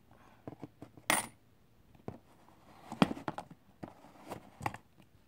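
A coin dropped into the slot of a homemade toy vending machine, landing with a short metallic ring about a second in, followed by a series of clicks and knocks from the machine's mechanism being worked.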